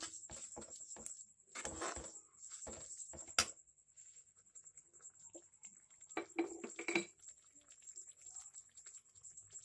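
Steel spoon scraping and knocking against a metal kadai while stirring a thick tomato and onion masala: a quick run of scrapes in the first couple of seconds, a sharp clink about three and a half seconds in, and another burst of scraping near seven seconds.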